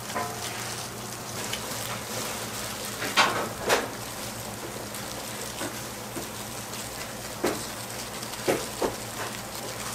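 Gloved hands working sticky rice-cake dough on a plastic cutting board: short rustles and taps of plastic gloves and wrap, a few times, over a steady hiss and low hum of the shop.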